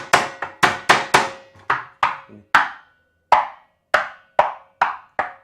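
Sharp, repeated knocks on a nailed-head candombe drum, about two a second with a short pause, each dying away quickly over a faint steady ringing tone.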